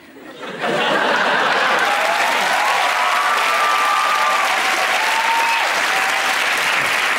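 Studio audience applauding, starting about half a second in and holding steady, with a few cheers over it.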